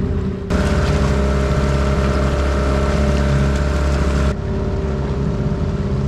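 Yamaha outboard motor on an inflatable dinghy running steadily at speed under way. It is heard close up and louder from about half a second to about four seconds in, farther off before and after.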